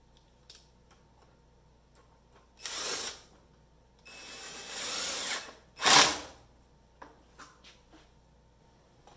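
Cordless drill driving the tightening screws of metal band clamps around a glued wooden tube. It runs three times: briefly about two and a half seconds in, longer just after four seconds, and a short, loudest burst about six seconds in, with small clicks and knocks between.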